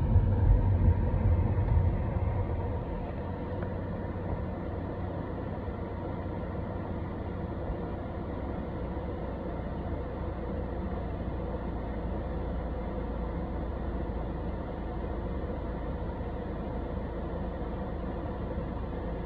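A vehicle's engine running steadily: a low rumble with a faint hum over it, heavier for the first two or three seconds, then settling to an even level.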